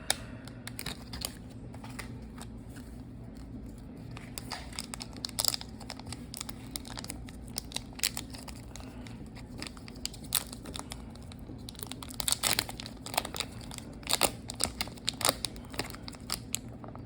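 A trading card booster pack's wrapper being torn open and crinkled: irregular crackling and rustling that grows busier in the second half, over a steady low hum.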